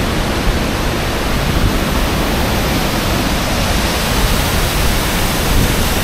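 Wesach Falls pouring down: the loud, steady rushing roar of a waterfall's falling water, unchanging throughout.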